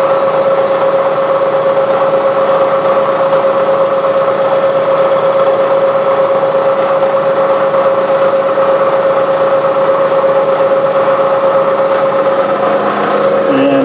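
Metal lathe running steadily, its spindle turning a long slender bar held on a live center, with a constant machine whine.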